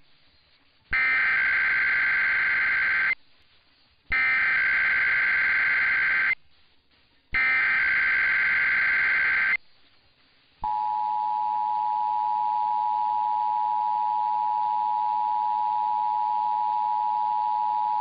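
Emergency Alert System tones received on 670 AM radio. First come three bursts of SAME digital header data, each about two seconds long with about a second's gap between them. Then, about ten and a half seconds in, the steady two-tone attention signal begins, opening the Required Monthly Test.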